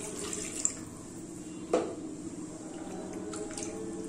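Silicone spatula stirring milk in a kadai, with light scraping and clicks against the pan and one sharp knock a little under two seconds in, over a steady low hum.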